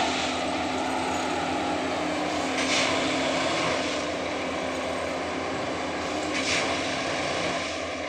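Plasser & Theurer 09-3X track tamping machine at work: its engine and tamping units run steadily, with a short hiss twice, about four seconds apart.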